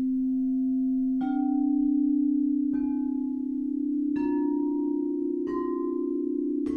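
Crystal singing bowls struck one after another with a mallet, five strikes about a second and a half apart. Each bowl rings a little higher in pitch than the last, and their long rings overlap into one sustained tone.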